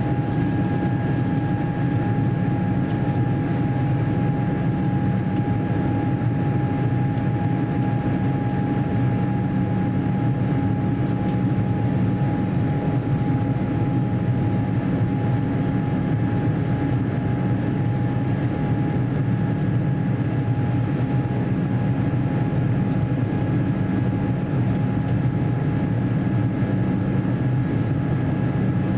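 Cabin noise of an Airbus A350-900 in flight, its Rolls-Royce Trent XWB engines and the airflow giving a steady drone with a constant tone over it.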